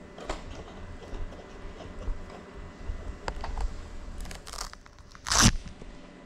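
Handling noise from a landed FPV drone resting on a countertop with its motors stopped: scattered clicks and light scrapes, then one loud scraping crunch about five seconds in.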